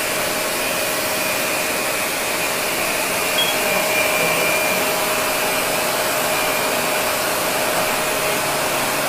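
Shark Navigator Lift-Away Professional NV356E upright vacuum cleaner running steadily: an even rush of air with a constant motor hum and a fainter high whine.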